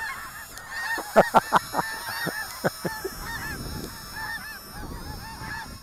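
A flock of snow geese calling as they fly over: many overlapping honks, densest a second or two in and thinning out toward the end.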